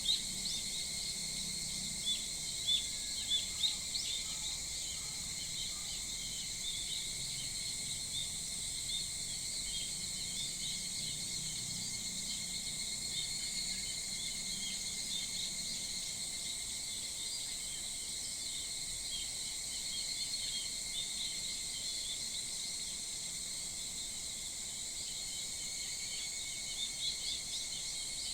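Summer morning chorus of insects keeping up a steady, high-pitched drone in several even tones, with short bird chirps scattered through it. The chirps are thickest in the first few seconds and again near the end.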